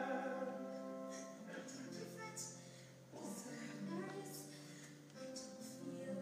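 Soft orchestral accompaniment with a singer's voice, from a live stage musical, getting quieter in the first second or so.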